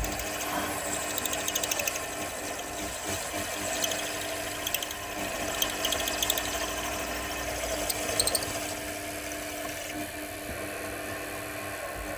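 Small milling machine running steadily with a reamer in its chuck, reaming the shaft holes through the top and bottom lugs of a model steam engine's base frame, with a few brief clicks from the cut.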